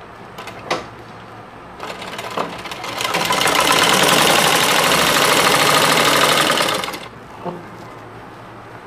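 Household sewing machine stitching, as elastic is sewn into a gathered waistband. It starts about two seconds in, speeds up into a steady fast rattle and stops about seven seconds in, with a couple of light clicks before it starts.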